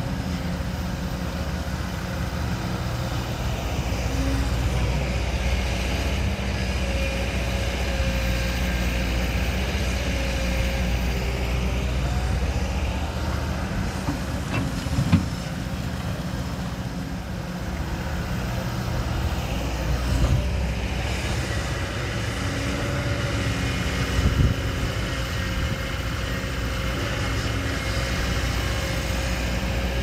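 Heavy diesel construction machinery running steadily, its engine note swelling and easing with load. Two sharp knocks stand out, one about halfway through and one later on.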